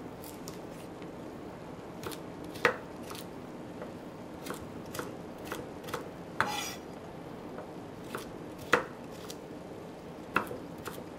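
Chef's knife chopping parsnip on a plastic chopping board: a dozen or so irregularly spaced knocks of the blade striking the board, two of them much louder, with one drawn-out stroke about halfway through. A steady low hum sits underneath.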